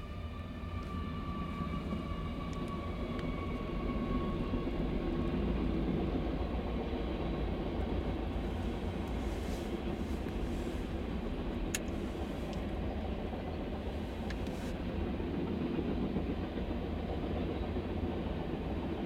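Freight train of covered hopper cars passing on the rails, with a steady rumble of wheels on track and a few sharp clicks. In the first few seconds, as the locomotives go by, a high tone falls in pitch and fades.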